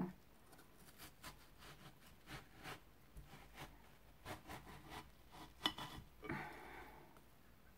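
Faint scattered taps and soft rubbing as a half watermelon is handled upright on a cutting board, with one sharper click a little after the middle.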